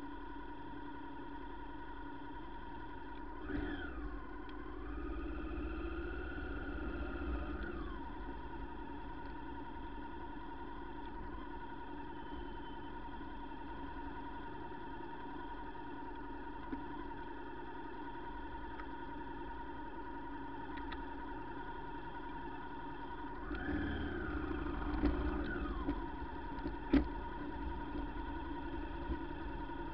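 Motor vehicle engine running at a steady speed with a steady hum. Twice it revs briefly, rising in pitch and falling back: a few seconds in and again about three-quarters of the way through. A sharp click comes near the end.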